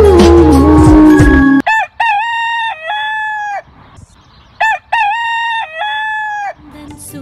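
A sustained musical sting cuts off about one and a half seconds in, then a rooster crows twice, each crow about two seconds long, with music starting again near the end.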